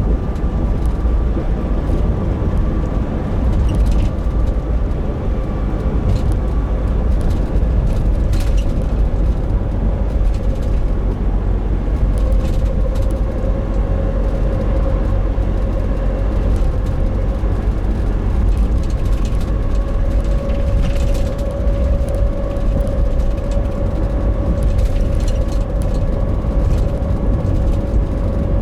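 Nissan NV350 Caravan van with its YD25DDTi four-cylinder turbodiesel, driving at light steady throttle. A dense low road-and-engine rumble carries a steady droning 'kō~n' hum that dips slightly in pitch, then rises a little about halfway through. The owner suspects this drone is a differential noise.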